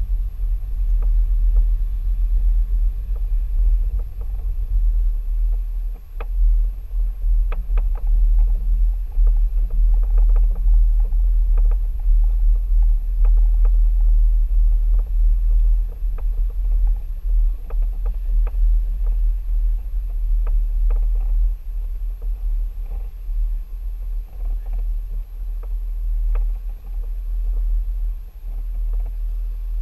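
Mercedes-Benz ML350 BlueTec SUV rolling slowly over a bumpy dirt track, picked up through a camera mounted on its hood: a steady low rumble with scattered light clicks and knocks.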